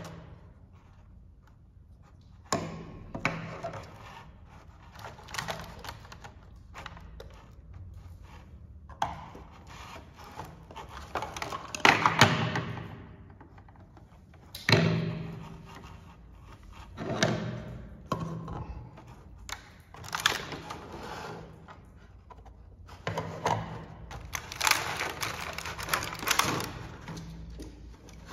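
Clear plastic blister packaging crinkling and crackling as it is handled and small toy pieces are pulled out of it, with light clicks and knocks of little plastic pots, lids and utensils. The sound comes in irregular bursts, and the loudest crackling comes about twelve and fifteen seconds in.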